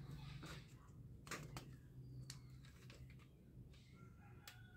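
Near silence: a low steady hum with a few faint, short plastic clicks from a toy dart gun being handled.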